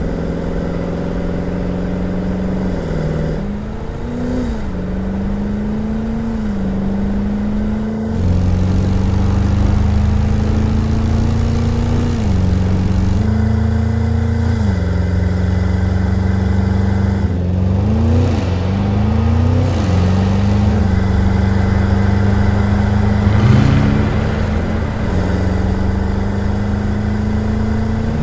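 Porsche Cayenne Turbo E-Hybrid's twin-turbo V8 exhaust, running at a steady idle with several short revs, each a quick rise and fall in pitch. The deep rumble grows louder about eight seconds in.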